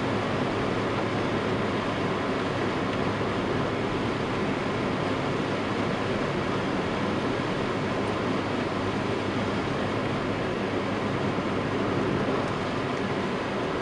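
Steady road noise inside a moving car's cabin: engine and tyres running on wet asphalt at an even speed.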